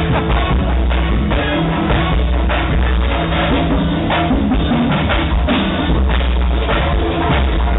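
Live band playing at a sound check: a drum kit keeping a steady beat under heavy bass and keyboard.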